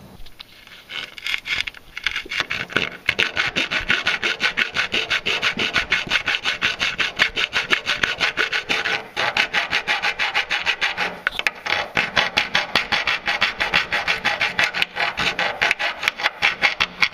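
Hand file rasping back and forth on the cut edges of a hole in a steel vehicle frame rail, smoothing the corners: quick, even strokes about four a second, starting softly and steady from about three seconds in.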